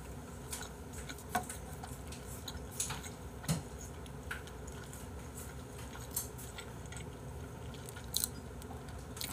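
A person eating rice and braised chicken with chopsticks: quiet chewing and mouth sounds, with a dozen or so small, sharp clicks scattered through.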